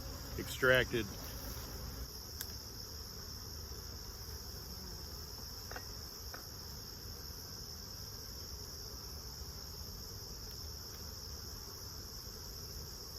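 Steady high-pitched insect trill that does not change, over a low hum, with a few faint clicks.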